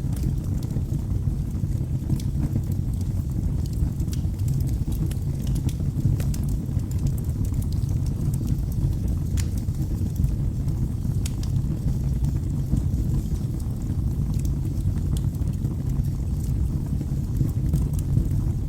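Wood fire burning in a fireplace: a steady low rumble with irregular sharp crackles and pops from the burning wood.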